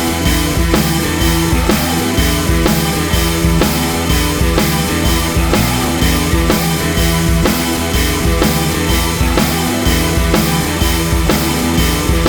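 Rock music with a driving drum kit and guitars, playing steadily at full volume.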